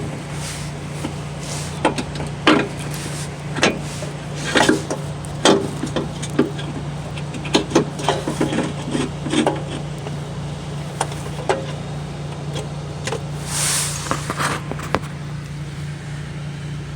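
Irregular clunks and knocks of a replacement starter motor being worked into its mounting on a Jeep engine, with a brief scrape about two-thirds of the way through, over a steady low hum.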